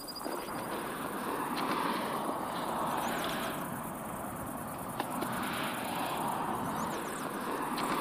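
Open-air rushing noise that swells and eases every second or two, with a few faint high chirps and a single sharp click about five seconds in.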